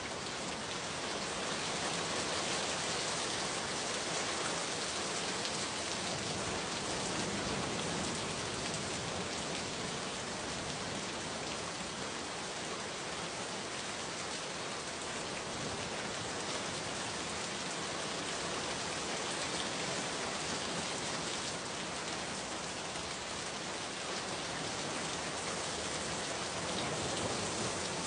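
Steady rain falling: an even hiss of many drops that holds the same level throughout.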